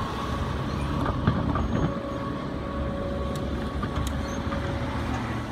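Railroad crossing warning bell ringing steadily as the gate arms lift, fading out about four seconds in, over a low rumble of road vehicles moving off across the tracks.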